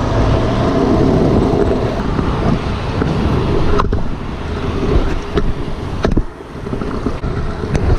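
Pro scooter rolling along with a steady low rumble of wheels and rushing air. From about halfway in, its wheels knock and clack irregularly over the joints of stone paving slabs.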